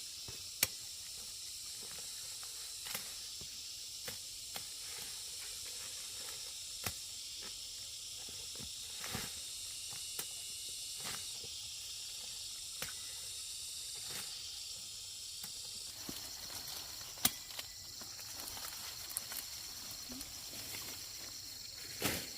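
Steady high-pitched hiss of outdoor ambience, with short sharp clicks and snaps scattered through it and a louder snap near the end.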